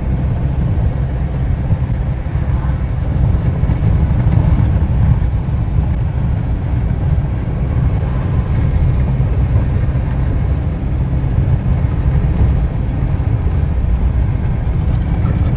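Steady low rumble inside the cab of a GAZelle Next light truck with a Cummins 2.8 turbodiesel driving in strong wind: engine and road noise mixed with wind buffeting.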